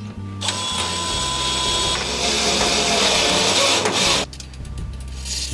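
DeWalt cordless drill boring through the steel of the shock tower to relocate the upper control arm mount. It runs under load from about half a second in, then stops just after four seconds.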